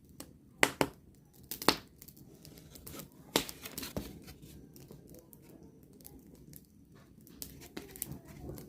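Small campfire of dry leaves crackling: a handful of sharp, irregular pops and cracks, loudest in the first four seconds.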